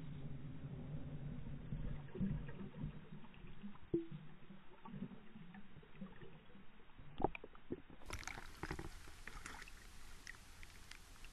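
Muffled underwater sound of a hooked bass being reeled toward the surface: low rumbling with a couple of sharp knocks. About two-thirds of the way in the sound turns clearer, with water splashing as the bass thrashes at the side of an aluminium boat.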